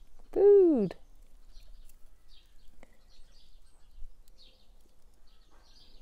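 Faint birdsong: scattered short, high chirps from small birds over a light outdoor hiss.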